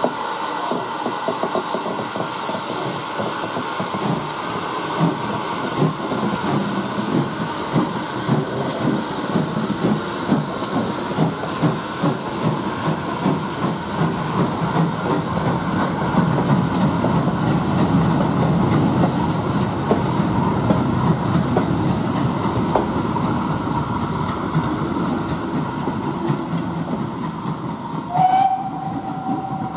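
GWR 64XX class 0-6-0 pannier tank steam locomotive pulling away with its train: a steady beat of exhaust chuffs with hissing steam, and the wagons rattling along behind. Near the end a steam whistle sounds once, a single steady note held for under two seconds.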